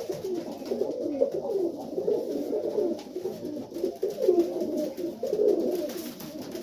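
Several young Serbian highflyer pigeons cooing together, overlapping low, warbling coos that go on without a break.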